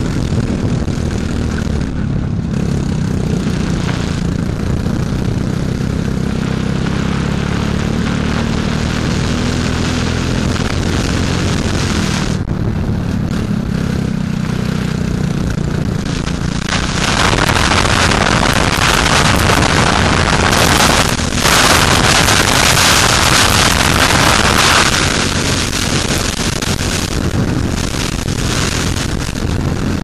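Racing kart engine running steadily at speed, heard from the onboard camera on the kart. A loud rushing hiss joins it from about 17 to 25 seconds in.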